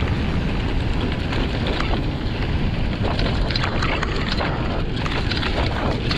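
Wind buffeting the microphone of a riding mountain biker, a steady rushing rumble, with scattered clicks and rattles from the bike on rough trail.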